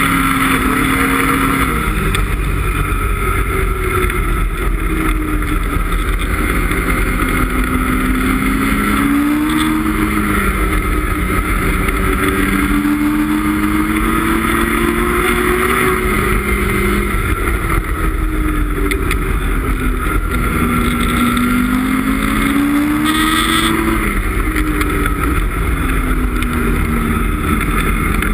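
Ski-Doo MXZ X 850 E-TEC snowmobile's two-stroke twin engine running under way, its pitch rising and falling again and again with the throttle.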